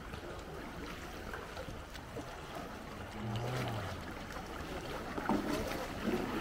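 Canoe paddles dipping and splashing in calm water over a steady wash of water, with a couple of louder splashes near the end.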